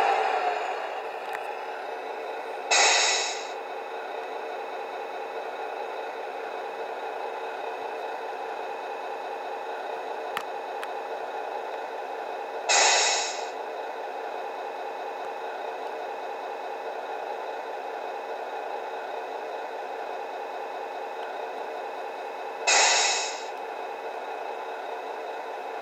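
Tamiya Scania R620 RC truck's engine sound unit, played through its small speaker, settles within the first second to a steady diesel idle. A short, loud hiss cuts in three times, about ten seconds apart.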